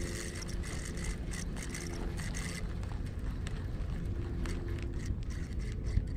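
Spinning reel being cranked, its gears giving a fine rapid clicking whir in two spells, over a low rumble of wind on the microphone.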